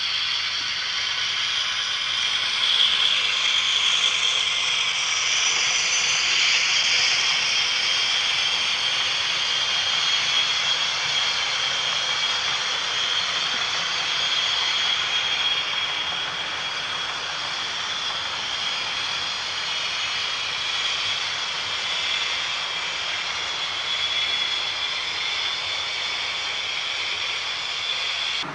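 Sound decoder in a model Western-class diesel-hydraulic locomotive playing its engine sound through a small speaker as the train runs: a thin, steady diesel drone, a little louder about three to seven seconds in.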